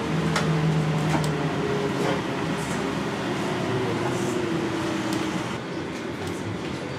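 Interior of an NAW trolleybus under way: a steady electric whine and hum, with a higher tone that slowly falls in pitch between about two and five seconds in, and a few light ticks and rattles.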